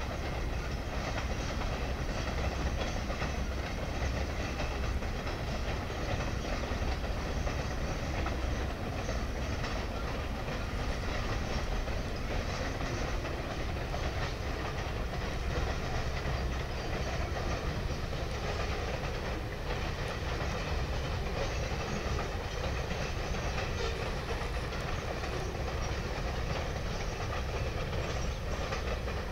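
Freight train of double-stack container cars rolling across a tall wooden trestle: a steady low rumble of steel wheels on the rails, with an occasional clack.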